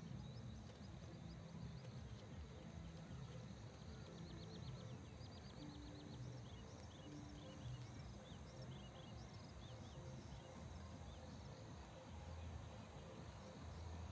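Faint rural field ambience: a low steady rumble with a bird chirping in short high notes, a quick run of them about four seconds in, then scattered single chirps.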